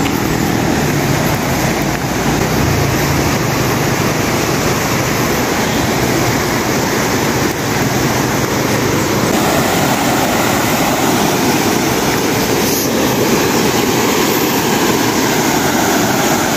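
Steady rushing noise of a shallow river's rapids running over rocks, with a low rumble underneath during the first three seconds.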